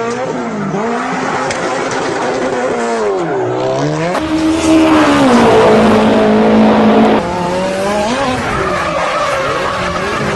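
A motor revving, its pitch rising and falling over and over, then held steady and louder for a few seconds midway.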